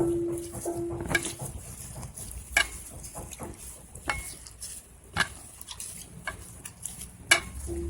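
Kitchen handling at a bowl: scattered sharp clinks and knocks of dishware and utensils amid soft stirring and handling noise. A steady low tone fades out in the first second and a half.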